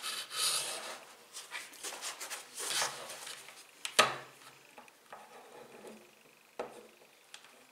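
Handling noise of a black plastic power adapter with its cable coiled around it: rustling and scraping as it is picked up off the tabletop and turned over in the hands, with a sharp click about four seconds in and a lighter knock near the end.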